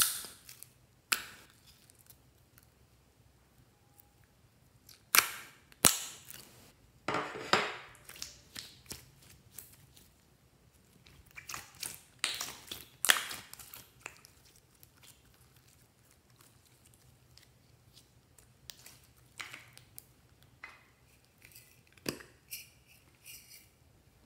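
Slime being squeezed and pressed by hand: clusters of sharp pops and crackles separated by quiet pauses. The loudest pops come about five, six and thirteen seconds in.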